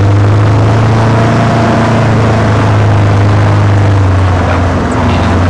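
Engine of a side-by-side ATV running at a steady cruising speed, a constant low drone with road and ride noise, heard from inside its open cab.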